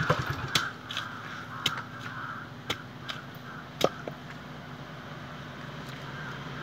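A long heavy knife chopping into the husk of palmyra palm fruits: about six sharp, irregularly spaced cuts in the first four seconds, then only faint sounds.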